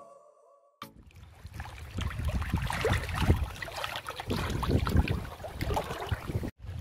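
Stream water splashing and rushing as hands grab a large carp in shallow water, a busy choppy wash of small splashes. It starts about a second in and cuts off abruptly near the end.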